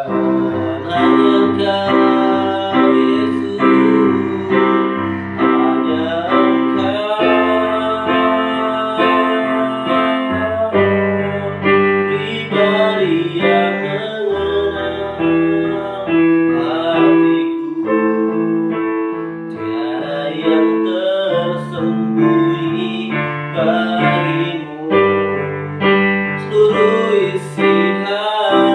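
Digital piano playing steadily repeated chords, with a man singing a slow song along with it.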